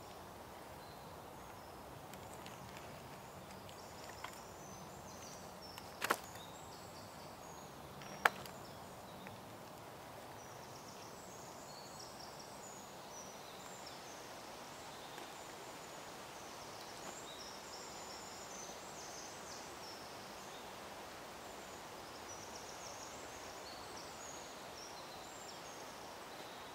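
Woodland ambience: small birds chirping over a steady background hiss, with two sharp knocks about six and eight seconds in.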